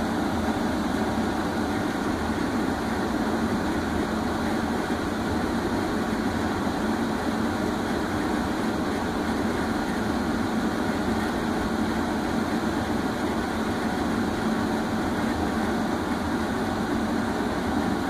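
Home HVAC system's indoor blower running at its highest speed: a steady rush of air with a motor hum. The test instrument reads it as too little airflow, and the blower cannot be turned up any higher.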